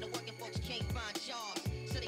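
Hip hop music with a steady beat: deep bass drum hits that drop in pitch and sharp hi-hat ticks.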